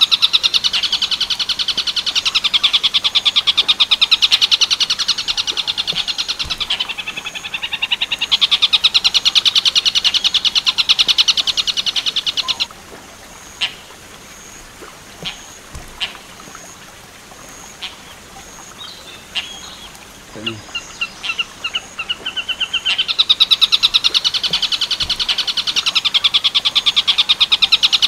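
Tengkek buto call used as a cendet training recording: a loud, very rapid rattling trill with a short dip partway through. It stops about 13 seconds in for a pause of roughly ten seconds, filled only by faint scattered chirps and clicks, then starts again near the end.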